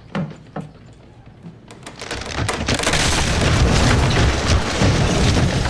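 Two sharp wooden knocks, then from about two seconds in a loud, swelling crash and rumble as a wooden building is pulled down and collapses.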